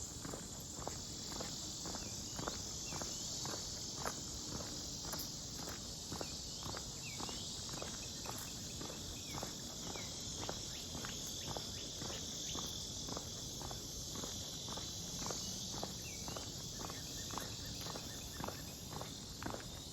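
Footsteps of a person walking at an even pace, about two steps a second, over a continuous high-pitched drone of insects.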